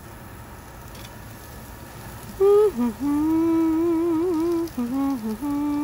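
A woman humming a wordless tune in a few long held notes, starting about two and a half seconds in. Before it, a faint hiss of cabbage and cauliflower slices on a hot charcoal grill.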